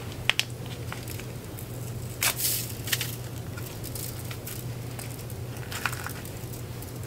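Scattered small clicks, crinkles and scrapes as dry yeast is added to warm water in a stainless-steel measuring cup and stirred with a spoon, with a longer crackly rustle a little after two seconds in. A steady low hum runs underneath.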